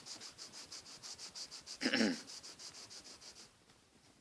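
Colored pencil rubbed back and forth on paper in quick, even shading strokes, about six a second, stopping about three and a half seconds in. A short falling hum or grunt from the artist about two seconds in.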